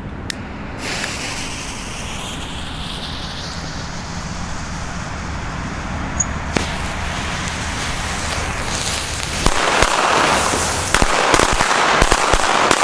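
Ring of Pyrotrade Color Thunder Black Edition black-powder firecrackers with preburners, lit by a torch lighter. A steady hiss of burning fuses and preburners slowly grows louder, with a single crack partway through. Then, near the end, a rapid string of sharp bangs comes as the crackers go off, described as nicely loud.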